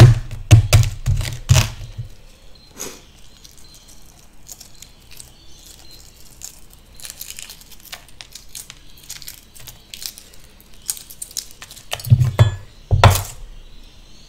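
A boiled egg is knocked several times against a cutting board to crack its shell, then faint crackling as the shell is peeled off. Near the end come two heavy knife thunks on the board as the egg is cut in half.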